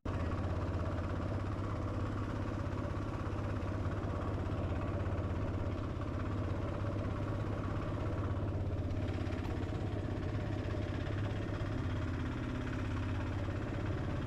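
Boat's outboard motor running steadily.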